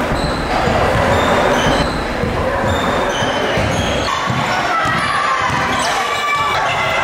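Basketball game sounds in a gym: a ball bouncing, short high sneaker squeaks and voices.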